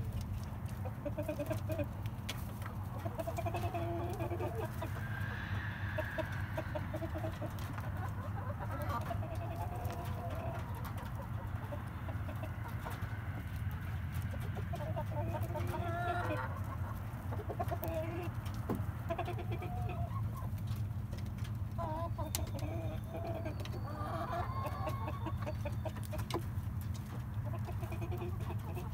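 Chickens clucking inside their coop, with short calls coming on and off throughout, as the hens wait to be let out. A steady low hum runs underneath.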